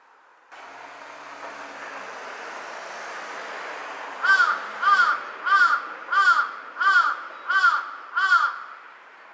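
Large-billed crow giving seven caws in a quick even series, about three every two seconds, starting about four seconds in. Each call rises and falls in pitch. A steady background rush begins about half a second in, before the calls.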